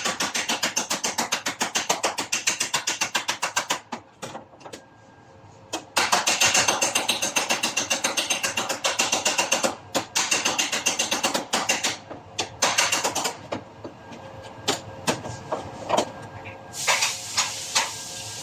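Body hammer tapping rapidly on a sheet-metal panel backed by a dolly, in fast runs of many blows a second broken by short pauses, then slower single taps. A steady hiss comes in near the end.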